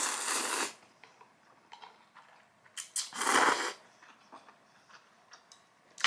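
A person slurping spicy instant ramen: two loud slurps, one at the start and another about three seconds in, with small clicks and taps between them.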